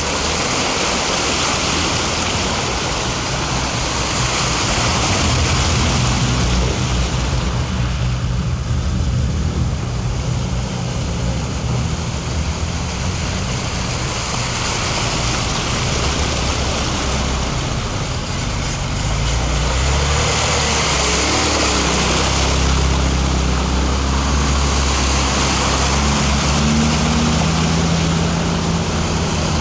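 Off-road 4x4 engine running while the vehicle drives through water-filled forest puddles, with a steady rush and splash of water over the engine note. The engine is pushed harder about two-thirds of the way in, its note rising and wavering near the end.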